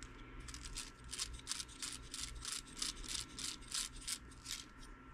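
Metal gears inside an upgraded WPL B16 RC axle turned by hand, giving a quick, even run of small clicks, about five a second, that starts about half a second in and stops shortly before the end.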